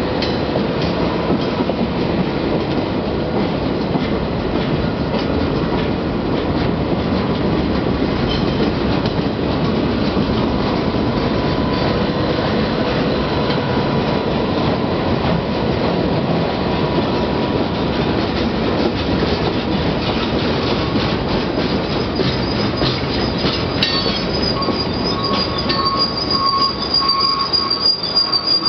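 Freight cars rolling past close by: a steady rumble and clatter of steel wheels on rail. Thin wheel squeal tones come and go, and a high-pitched squeal sets in near the end.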